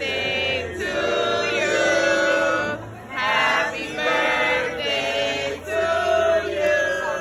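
A group of voices singing together in chorus, in held notes with short breaks between phrases: a birthday song sung as a dessert with a sparkler candle is brought to the table.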